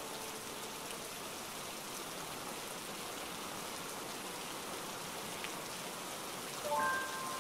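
Steady rain splashing onto a wet, water-covered surface, an even patter throughout. A few held musical notes come in near the end.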